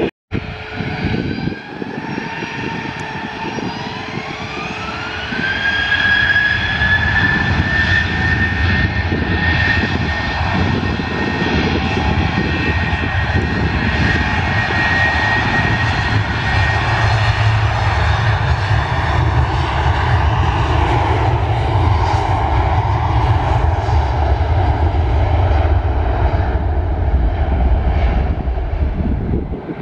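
Boeing 737-800's CFM56-7B turbofan engines spooling up to takeoff thrust: a whine rises in pitch for a few seconds, then holds as a steady high whine with a deep rumble that grows as the airliner rolls down the runway.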